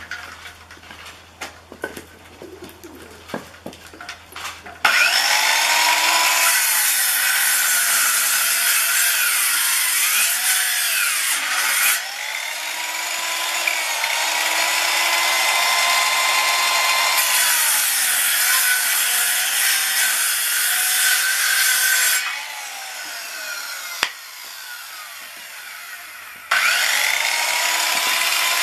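Handheld electric circular saw cutting through a piece of wood. It starts about five seconds in after some handling clicks; its whine dips in pitch and recovers as the blade cuts, drops away for a few seconds near the end, then starts cutting again.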